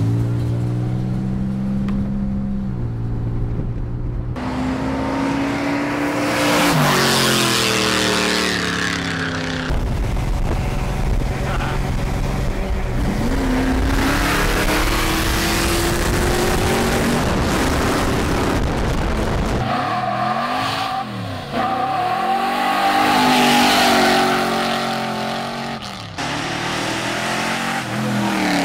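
Chevrolet pickup's ZZ572 big-block V8 revving and driving past in several separate passes, its pitch climbing and falling with each rev and breaking off abruptly between passes.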